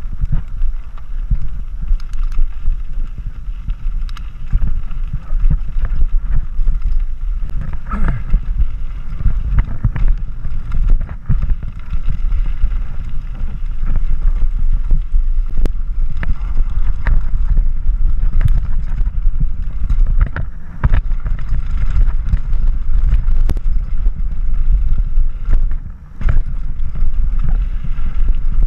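Mountain bike rolling fast down a gravel trail: a steady low rumble of wind buffeting the microphone and tyres on gravel, with frequent sharp clicks and rattles from the bike over the rough ground.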